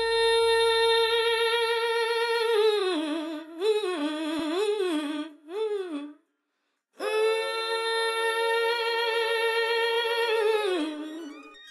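A single voice humming long held notes, with no words. One note is held steady for about two and a half seconds, then the pitch wavers and slides up and down. After a pause of about a second near the middle, a second long steady note drops in pitch near the end.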